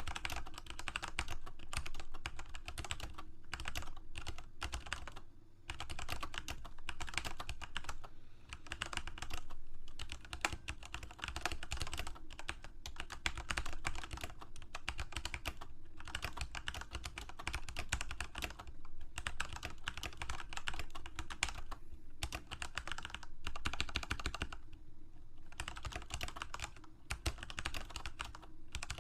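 Computer keyboard being typed on steadily, fast runs of key clicks broken by brief pauses every few seconds.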